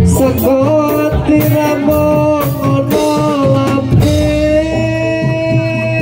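Live Javanese jathilan (kuda lumping) trance-dance music: drums beating under a long held melody line that steps between pitches.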